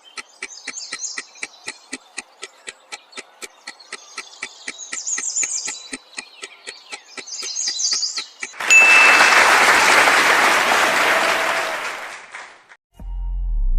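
Countdown sound effect: a fast ticking, about five ticks a second, with birds chirping over it. About nine seconds in comes a short ding, then a burst of applause lasting some four seconds.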